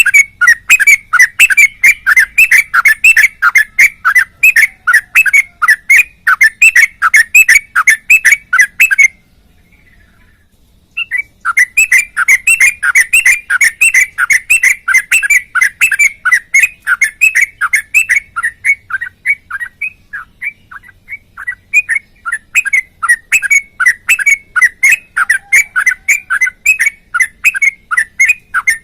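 Sooty-headed bulbul (trucukan) singing a long, fast run of short repeated notes, about four or five a second. It stops for about two seconds about nine seconds in, then carries on.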